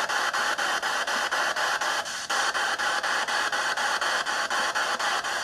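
Radio static from a hand-held ghost-hunting radio sweeping through stations: a steady hiss chopped about five times a second as it scans, with a short dip about two seconds in.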